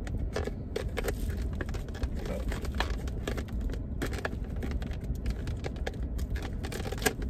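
Thin plastic crinkling and clicking, many short crackles, as a plastic takeout clamshell is handled and a plastic-wrapped fork is torn open, over a steady low rumble.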